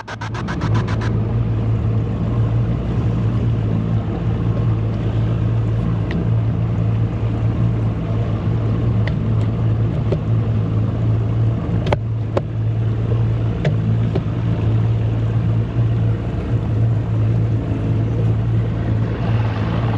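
Outboard motor idling steadily, an even low hum, with a few faint clicks around the middle.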